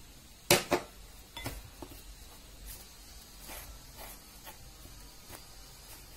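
Plastic spoon stirring flour and water into dough in a glass bowl: soft scraping with light taps against the glass. Two sharper knocks come about half a second in.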